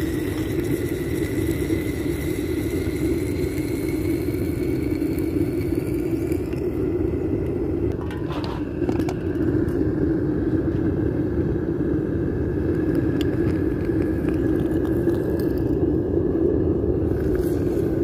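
Propane burner of a homemade gas foundry running with a steady rush of flame while aluminium cans melt in the crucible. A faint whistle rides over it for the first several seconds, and there is a brief knock about eight seconds in.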